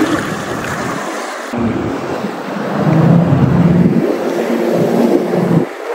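Jet ski engine running on open water, with water rushing and wind buffeting the microphone; the engine tone steadies after about a second and a half and swells in the middle.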